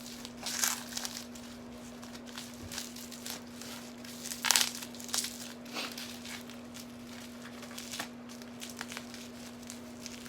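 Packing padding being pulled and torn off a tightly wrapped bottle: irregular crinkling and crumpling, with the sharpest crackle about halfway through.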